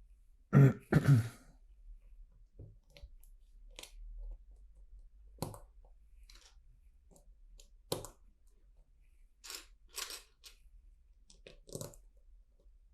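Plastic LEGO pieces being handled and rummaged through: two loud crunching bursts in the first second or so, then scattered clicks and short rustles of pieces.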